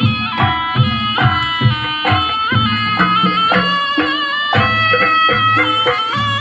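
Traditional Javanese jaranan music: a held, bending reed-like melody line over hand-drum strokes, with no singing.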